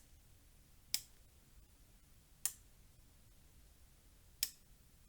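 Thermal camera clicking three times, short sharp clicks spaced irregularly about one and a half to two seconds apart.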